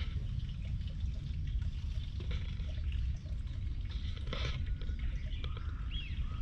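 Water trickling in a garden pond over a steady low rumble, with small scattered clicks, a louder rustle about four seconds in and a short high chirp near the end.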